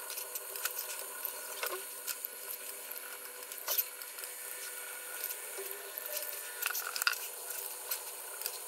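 Pelikan colored pencil scratching lightly on paper in short strokes, with a few light clicks as pencils are handled and set down on the table.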